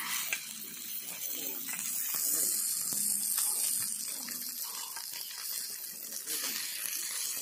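Marinated fish pieces frying in oil on a flat iron griddle: a steady sizzling hiss with scattered small crackles and clicks.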